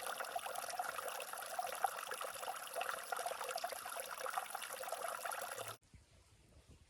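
Water trickling steadily, then cut off abruptly about six seconds in.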